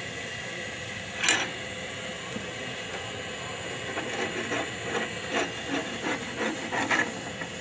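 Steady hiss of a blacksmith's forge fire under its air blast. One sharp strike about a second in, then a run of lighter, irregular clinks and knocks over the second half, as the steel is handled at the forge.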